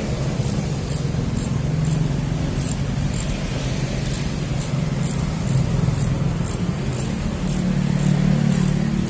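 Socket ratchet wrench clicking as it is swung back and forth on a bolt, short high ticks about twice a second, over a steady low hum.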